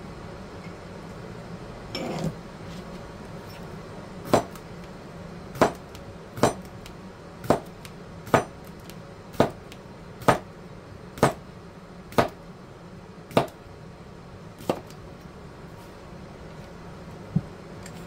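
Cucumbers being cut on a cutting board: eleven sharp knocks about a second apart as the blade strikes the board, after a brief scrape about two seconds in.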